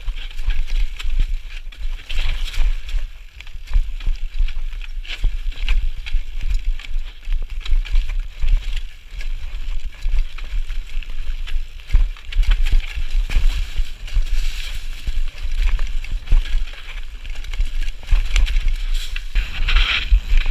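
Wind buffeting the microphone of a camera on a moving mountain bike, a gusting rumble with steady rushing noise and frequent small rattles and clicks.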